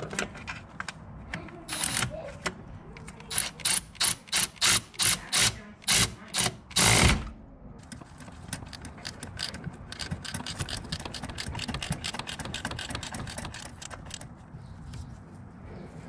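Ratcheting wrench clicking as a master cylinder's mounting nuts are turned on the brake booster studs: a run of loud single clicks about three a second, ending in a longer burst about seven seconds in, then a long run of fast, lighter ticks.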